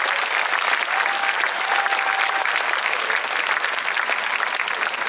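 Crowd applauding with steady, dense clapping.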